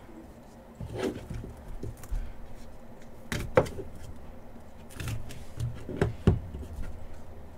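A series of short scrapes, clicks and knocks as a small cardboard trading-card box is handled and slit open with a box cutter.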